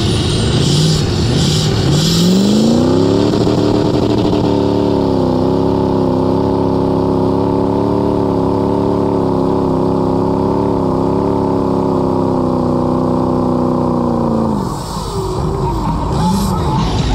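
Mud truck engine revving up over about a second, then held at high revs for some ten seconds, the pitch wavering slightly, before dropping back near the end: a wide-open run through a mud bog.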